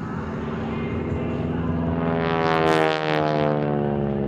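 North American SNJ-6 Texan's radial engine and propeller in an aerobatic pass, the drone swelling to its loudest about two and a half seconds in and dropping slightly in pitch as the plane goes over.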